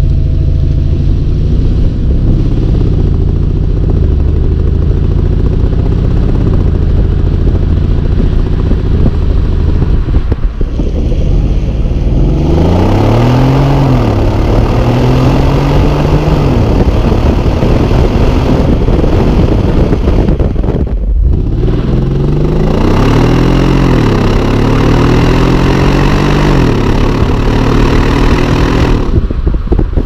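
Mercedes-Benz E 500's 4.7-litre twin-turbo V8 running under way, heard close to the car with tyre and wind rush. Its note rises and falls several times as the car accelerates through the gears and lifts off, with short breaks about ten and twenty-one seconds in.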